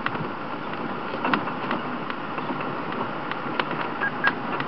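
Safari game-drive vehicle running on a dirt track: steady engine and road noise with scattered short knocks and rattles.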